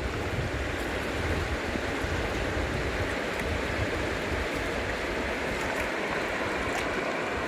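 Mountain river rushing over rocks: a steady wash of water noise.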